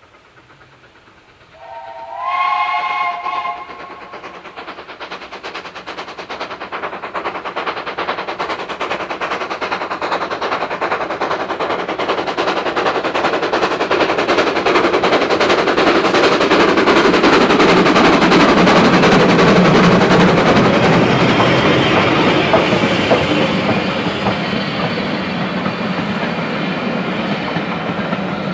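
A steam locomotive whistle sounds for about two seconds, stepping up in pitch. Then a double-headed steam train, an LBSCR Terrier 0-6-0 tank engine leading a Bulleid Pacific, comes closer and passes with fast rhythmic beats, loudest around the middle. The coaches then roll past with clickety-clack on the rails.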